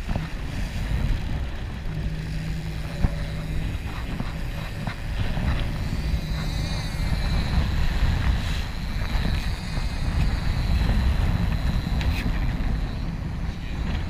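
Wind buffeting the microphone over the steady low rumble of a sportfishing boat's engine and the wash of the sea along the hull.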